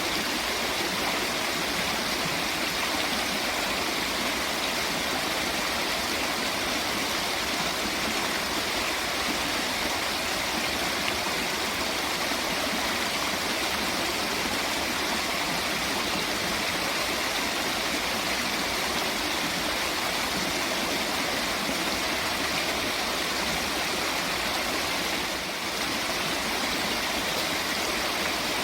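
Rushing water, a steady, even wash with no breaks.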